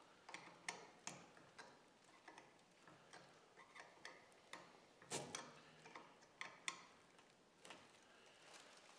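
Faint, irregular metal clicks of a half-inch wrench on a small nut as it is slowly tightened, about one or two a second, with a slightly louder click about five seconds in.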